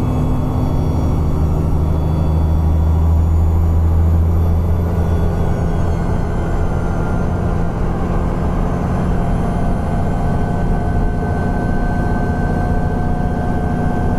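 Alexander Dennis Enviro 400 double-decker bus running: a deep engine drone that eases off about five seconds in. Steady thin high whining tones come in during the second half.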